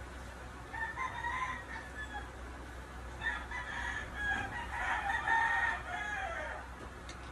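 A rooster crowing with other chicken calls, once about a second in and again, longer, from about three seconds in.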